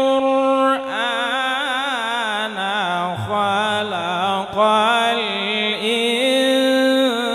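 A man reciting the Qur'an in a melodic, chanted style. He holds one long note to almost a second in, then sings a continuous run of wavering, heavily ornamented melismas.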